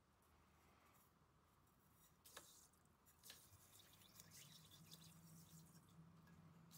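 Near silence: faint room tone with a few faint clicks and taps as ingredients are tipped from cups into a plastic measuring jug.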